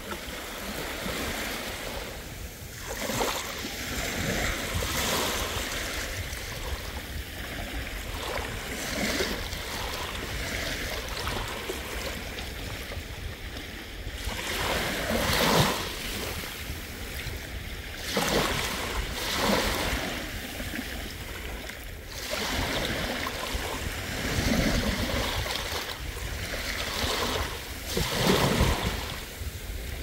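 Sea waves breaking and washing up a beach, swelling in irregular surges every few seconds, with a steady low rumble of wind on the microphone underneath.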